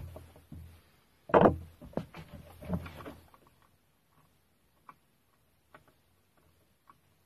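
Knocks and clatter of hard parts being handled: a loud knock about a second and a half in, several lighter knocks and rattles over the next two seconds, then a few faint clicks.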